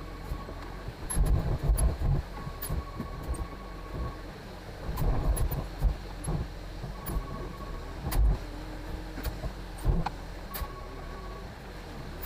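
Concrete mixer truck's diesel engine running during a pour, a steady low rumble with irregular louder surges and thumps. Scattered sharp clicks and an intermittent thin tone come and go over it.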